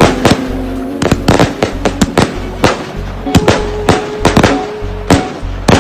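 Fireworks going off in many sharp bangs and crackles at an irregular pace, several a second, over steady background music.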